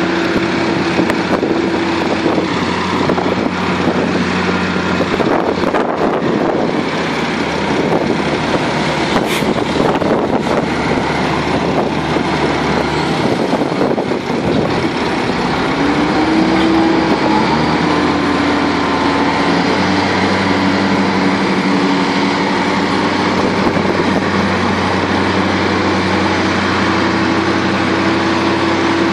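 Diesel engines of a Case IH Magnum tractor and a JCB telehandler running while pushing and compacting silage on a clamp, with a steady engine note whose pitch drops and then rises and holds about halfway through as the machines change load.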